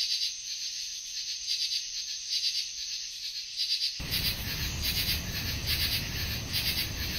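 Summer field recording of an animal chorus chirping in a pulsing rhythm, about two pulses a second, heard through a bandpass filter that strips out the low traffic rumble beneath it. About four seconds in, the low traffic rumble comes back in under the chirping.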